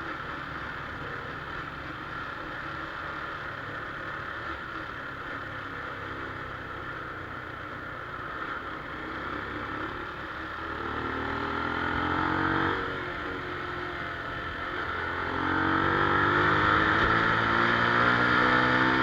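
Honda Wave 110i's small single-cylinder four-stroke engine running steadily, then rising in pitch about ten seconds in, dropping back suddenly near thirteen seconds, and rising again to run higher and louder toward the end.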